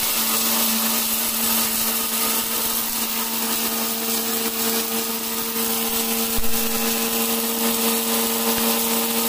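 Rajesh electric mixer grinder running at steady speed, grinding dry roasted spices and millet into a coarse masala powder in its steel jar: a steady motor hum under a continuous grinding noise.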